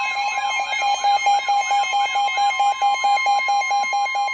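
Emergency Alert System attention signal announcing a severe thunderstorm warning: a loud steady high tone layered with rapid beeping, about five beeps a second, and a warbling sweep repeating about three times a second.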